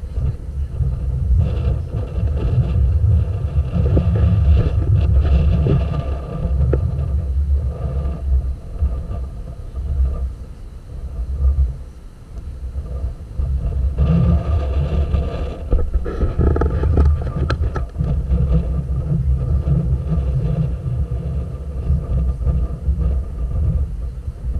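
Low, gusty rumble of wind buffeting the camera's microphone on the open deck of a moving passenger boat, surging and easing every few seconds, with the boat's engine running under it.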